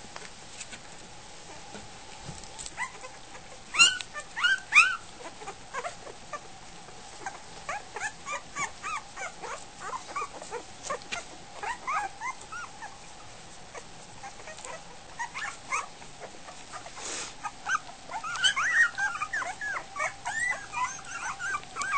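Week-old goldendoodle puppies squeaking and whimpering: many short, high squeals scattered throughout, coming thicker near the end.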